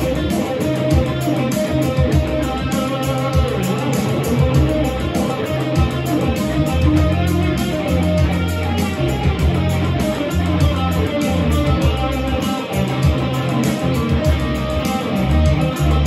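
Red Stratocaster-style electric guitar playing an improvised lead line over a backing track with a bass line and a steady beat.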